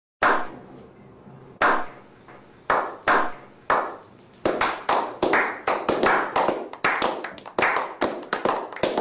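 Slow clap from a small group of men: single hand claps, each ringing out briefly, come over a second apart at first. From about halfway more clappers join and the claps speed up to several a second.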